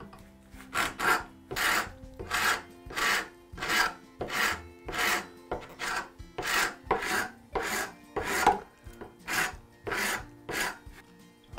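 A hand file stroking across the edge of an oak scale held in a vise, shaping it down to a template line: about sixteen rasping strokes at an even pace, a little more than one a second.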